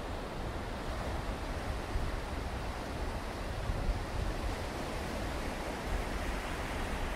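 Steady rushing of sea surf breaking on the beach, mixed with wind rumbling on the microphone.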